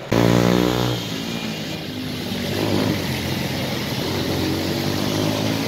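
A motor vehicle's engine running close by with a steady drone, loudest in the first second, over an even hiss of rain and tyres on a wet road.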